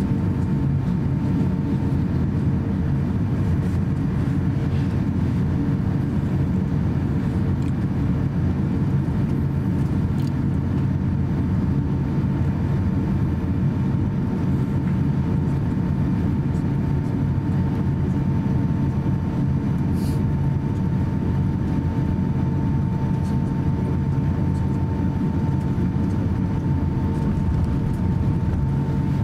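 Cabin noise of an Airbus A350-900 taxiing, heard from a passenger seat: a steady low rumble with a steady whine from its Rolls-Royce Trent XWB engines at taxi power.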